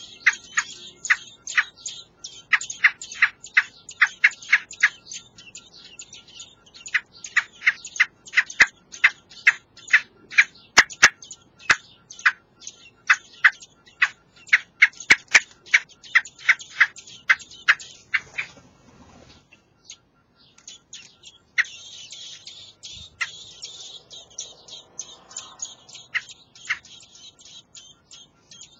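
Common blackbird nestlings begging for food with rapid, short, high calls, about four a second. The calls break off for a moment about two-thirds through, then start again.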